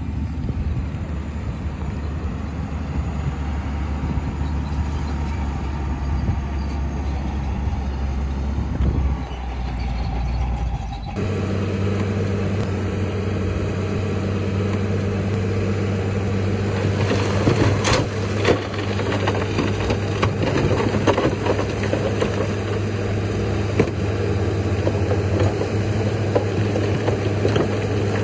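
Heavy diesel engine of earthmoving machinery running steadily. About eleven seconds in it switches abruptly to a different engine note, and clanks and rattles of metal and stone come through during the second half.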